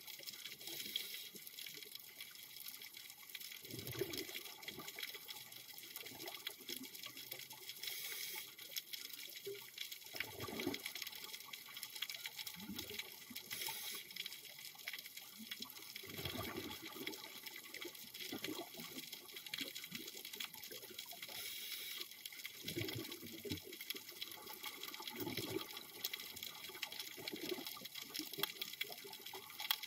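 Scuba diver breathing underwater through a regulator: rumbling bursts of exhaled bubbles every few seconds over a steady hiss.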